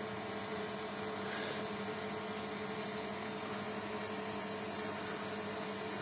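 A/C vacuum pump running steadily with an even electric hum while it holds vacuum on the car's air-conditioning system, drawing UV dye in from the syringe.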